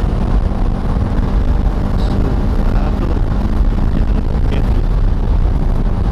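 Bajaj Dominar motorcycle engine running at a steady cruise, with heavy wind rush over the microphone.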